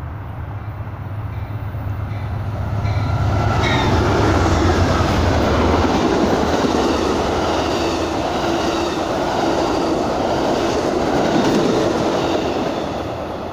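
Amtrak Southwest Chief passenger train passing at speed. The diesel locomotives' low engine hum passes in the first few seconds. About four seconds in the rush and rumble of the bi-level Superliner cars' wheels on the rails takes over, stays loud, and fades near the end.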